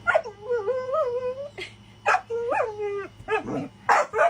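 A dog whining and yipping: a long wavering whine, a second whine that rises and falls, and several short sharp yips in between and near the end.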